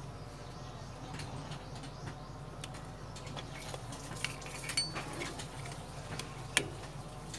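Light metallic clicks and clinks of a screwdriver and a small brake spring against the drum-brake shoes, adjuster and backing plate: a few scattered taps, one ringing briefly, with the sharpest click near the end.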